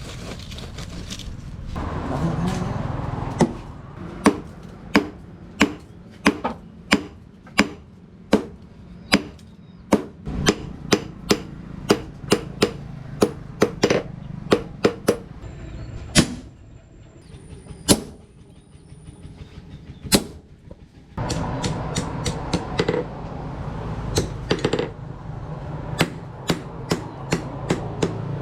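Hammer blows on hot rebar over an anvil in a steady rhythm, about one and a half strikes a second. They slow to a few single blows and then turn quicker and lighter near the end. A steady rushing noise comes in under the strikes near the start and again for the last several seconds.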